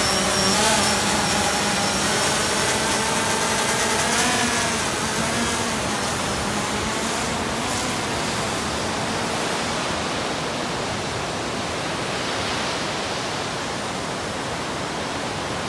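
DJI Phantom quadcopter's propellers whining, wavering in pitch and fading away over the first few seconds as it flies a bait out to sea, over a steady rush of surf.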